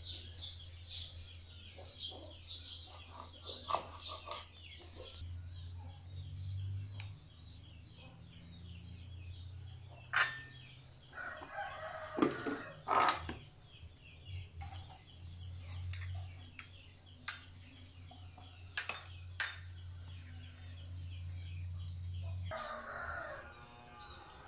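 Sharp taps of a kitchen knife cutting limes on a wooden cutting board, over a steady low hum. A rooster crows in the background, in the middle and again near the end.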